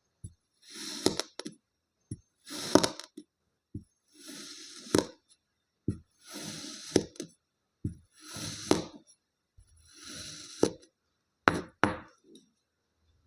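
Kinetic sand being cut: about six short crunching scrapes, each ending in a sharp tap, with a few single clicks between them and dead silence in the gaps.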